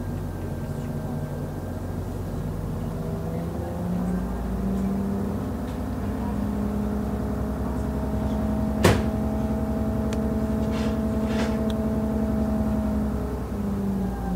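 MTU 12V183 diesel engine of a DB class 628.4 railcar heard on board, running under power: its note steps up about four seconds in, holds steady, then drops back near the end. A single sharp click cuts through about nine seconds in.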